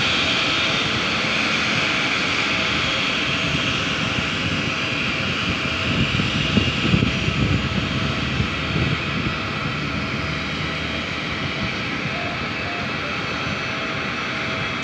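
Airbus A320 jet engines running at idle: a steady whining rush with a faint held tone, and a few louder low rumbles in the middle.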